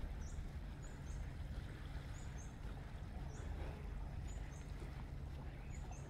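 Boat engine running with a low, steady drone, while a small bird gives short, high chirps, mostly in pairs, about every second.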